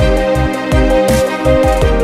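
Background music with a steady beat of about four low drum strokes a second under held melodic notes.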